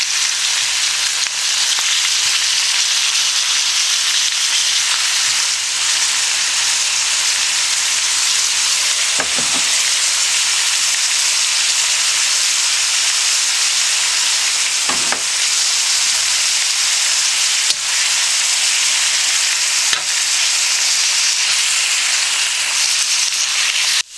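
Thinly sliced pork sizzling steadily in a hot cast iron wok as a metal spatula stirs it.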